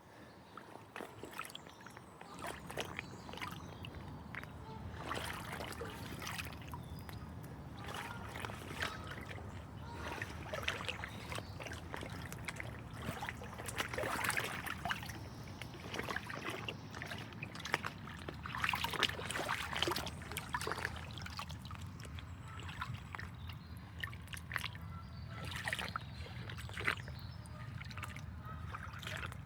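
Floodwater sloshing and splashing in irregular strokes over a steady low rumble, with louder splashes about halfway through.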